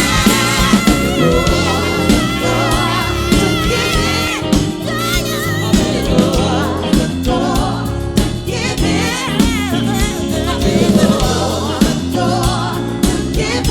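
Live soul band playing under singers who hold long harmonised notes, then sing wavering melismatic ad-lib runs.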